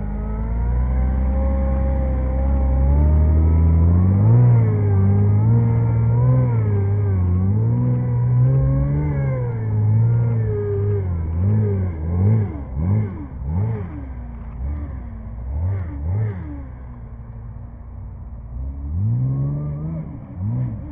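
Off-road tube-frame buggy's engine revving up and down under load in mud, with a run of quick, short throttle blips in the second half, a brief easing off, and a rise again near the end.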